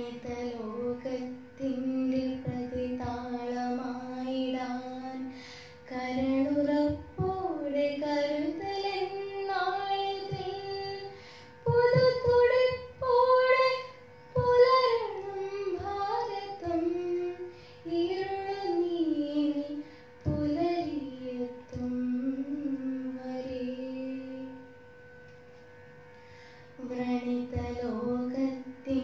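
A girl sings a Malayalam poem unaccompanied into a handheld microphone, in a melodic recitation style with long held and gliding notes. She pauses for about two seconds near the end before singing on. A faint steady hum sits underneath.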